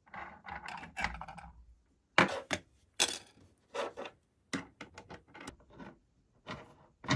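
A string of irregular light clicks and knocks, a few each second, with short silent gaps between them.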